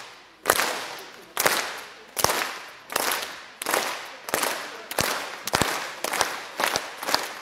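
A large crowd clapping in unison with arms overhead: about a dozen single collective claps, each ringing on in the sports hall's echo. The gaps shorten from about a second to under half a second, a thunderclap (Viking clap) speeding up towards open applause.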